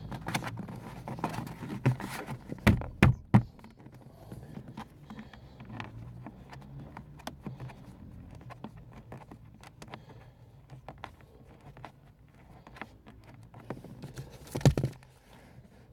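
Handling noise from fitting a car door speaker: scattered clicks, taps and rattles of hands and a screwdriver on the speaker and trim, with a few louder knocks about three seconds in and again near the end, over a low steady hum.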